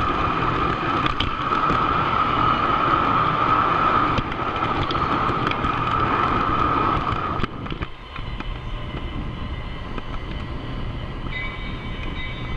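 O scale model train running on three-rail track: steady rolling and motor noise with a high steady whine. About seven and a half seconds in, the whine stops and the sound drops quieter.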